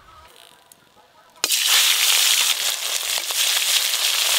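Whole climbing perch frying in hot oil in an aluminium wok: a loud, dense sizzle full of crackles that starts suddenly about one and a half seconds in.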